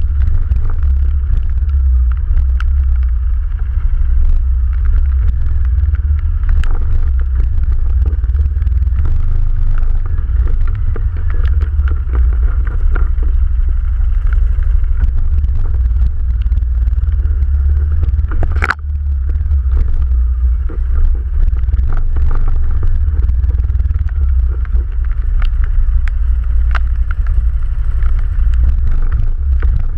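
ATV running over rough forest terrain: a steady, loud low rumble from the engine and drive, with scattered knocks and rattles from the bumps and one sharper knock about two-thirds of the way through.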